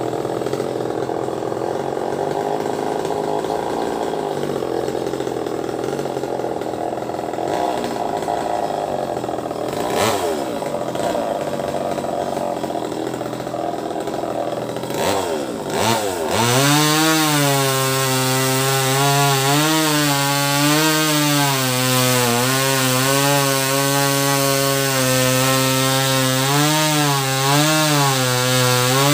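Small top-handle two-stroke chainsaw (a '258' model) running low, revved briefly twice. From about 16 seconds in it is held at high speed, its pitch sagging and recovering again and again as the chain cuts through a branch.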